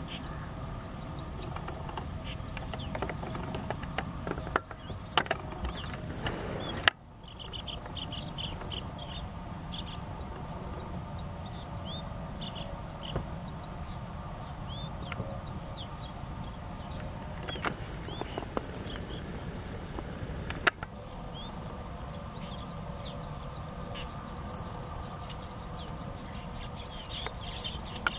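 Streaked weavers chirping: many short, high chirps scattered throughout. Underneath is a steady high insect hiss, a low background rumble and a few sharp clicks.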